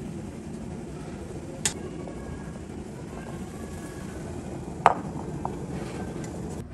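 Boiled baby corn tipped from a wire-mesh strainer into a glass bowl, with a steady low rush underneath. Two sharp clinks of metal or corn on glass stand out, one under two seconds in and a louder one about five seconds in.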